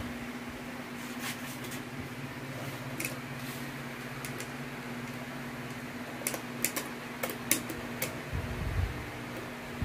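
Sharp light clicks and taps from a metal motorcycle top box being handled and its base fittings worked, a few early and a quick cluster of about five a little past the middle, then dull bumps near the end. Under them runs the steady hum of an electric fan.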